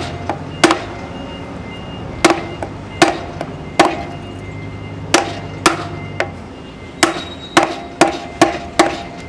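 About a dozen sharp hammer blows on a wooden block held against a boat trailer's bearing buddy, driving it into the wheel hub, with a quicker run of blows near the end as it seats home.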